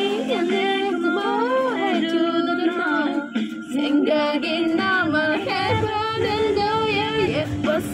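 Song with a woman's singing voice carrying a wavering melody over backing music, dipping briefly about three and a half seconds in.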